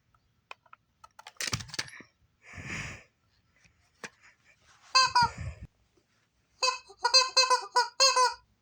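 A chicken calling in short, evenly pitched notes in quick groups of three or four, with a rougher, noisier call about a second in and another near three seconds.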